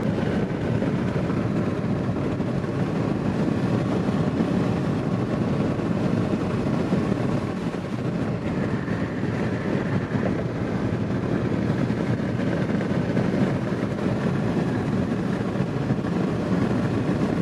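Steady road and engine noise inside the cabin of a moving car, an even low rumble that holds level throughout.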